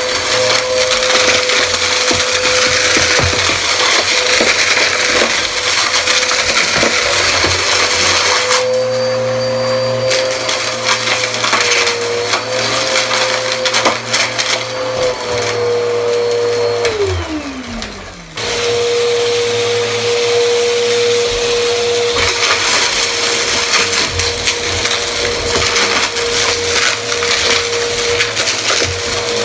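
Bissell PowerForce upright vacuum cleaner running over a rug, its brushroll crunching and rattling as it sucks up glitter, sequins, confetti and grit. About two-thirds through, the motor winds down in pitch to a stop, then it is running again.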